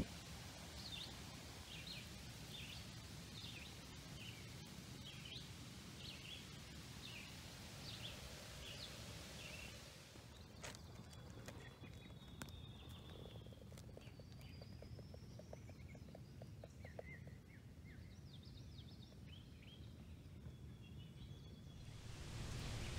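Faint birdsong: short high chirps repeated about twice a second, then, after a change about ten seconds in, scattered whistles and chirps.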